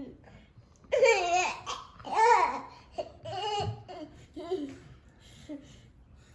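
Toddler laughing in several high-pitched bursts of giggles and squeals, fading toward the end.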